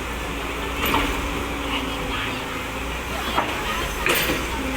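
Excavator's diesel engine running steadily, with several short sharp cracks about a second apart.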